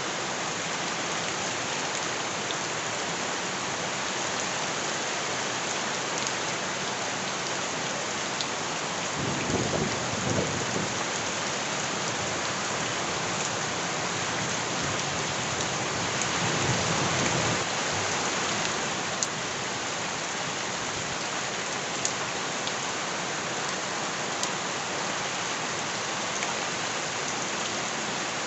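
Steady heavy rain falling as an even hiss, with two low rumbles swelling up, about ten and seventeen seconds in.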